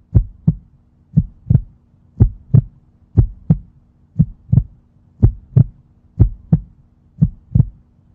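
Heartbeat sound effect: a steady double thump (lub-dub) about once a second over a faint low hum, used as a suspense beat while the verdict is awaited.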